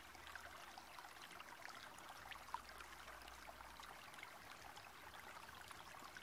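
Near silence: faint steady hiss with a few soft ticks, one a little louder about two and a half seconds in.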